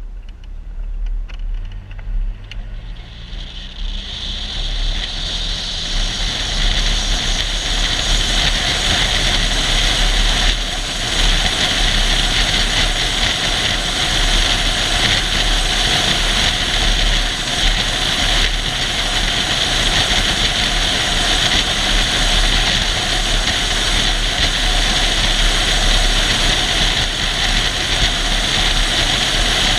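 Jeep driving off-road: the engine note climbs as it pulls away in the first few seconds, then a loud, steady rush of engine and road noise.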